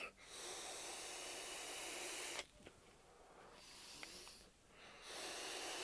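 A person taking a long draw on an electronic cigarette: a steady, quiet hiss of air pulled through the atomizer, stopping about two and a half seconds in. A fainter breathy exhale of vapour follows, and the steady hiss starts again about five seconds in.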